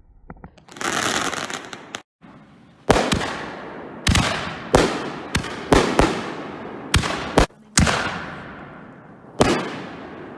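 Consumer aerial fireworks going off: a loud rushing hiss about a second in, then a string of about ten sharp bangs over some seven seconds, each trailing off in a long echoing fade.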